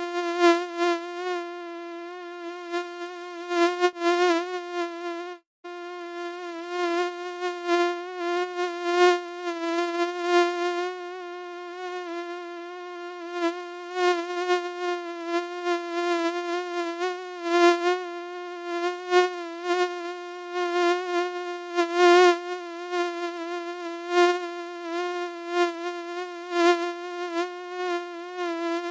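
Mosquito wing buzz: a steady whining drone whose pitch wavers slightly and whose loudness swells and fades, cutting out for an instant about five and a half seconds in.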